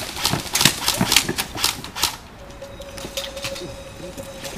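Airsoft rifles firing, a string of irregular sharp cracks and clicks in the first two seconds. Then a steady thin tone sets in and holds to the end.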